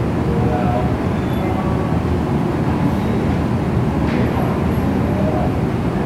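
Steady, even background rumble and hiss.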